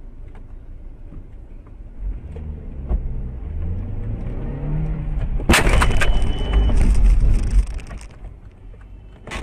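Car crash: vehicle engine and road noise growing louder, then a sudden loud impact about five and a half seconds in, followed by about two seconds of loud noise from the collision before it dies down.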